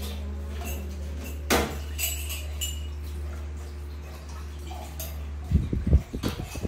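Knocks and clinks from a stainless steel bowl as a pet macaque handles boiled corn cobs in it, with a single sharp click about a second and a half in and a run of irregular knocks near the end as it reaches into the bowl, over a steady low hum.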